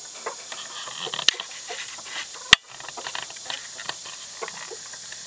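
Hens scratching and pecking at dirt and litter: an irregular patter of small scuffs and clicks, with a sharper click about a second in and a louder one about two and a half seconds in. A steady high insect drone runs behind.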